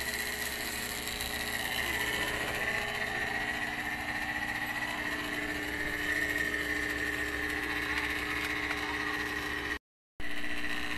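Samsung dual-inverter refrigerator compressor running after repair: a steady mechanical hum with a steady high-pitched whine over it, cutting out for a moment near the end. The unit is running on a fresh R600a charge with its clogged filter drier replaced.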